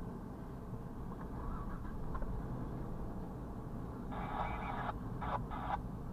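Low, steady rumble of a double-stack intermodal freight train rolling past, heard from inside a parked vehicle. About four seconds in, a hissy burst of sound lasts most of a second, followed by two short bursts.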